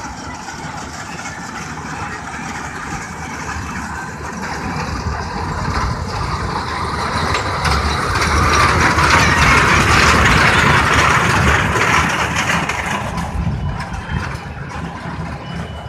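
Miniature ride-on park train running on its narrow-gauge track and passing close by. The sound grows louder to a peak between about eight and twelve seconds in, then fades as the train moves away.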